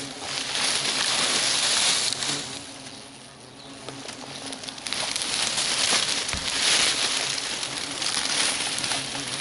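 Dry leaves and twigs rustling and crackling in surges as a gloved hand digs through a pile of garden cuttings, easing off briefly in the middle. A faint low buzz of Asian hornets runs underneath.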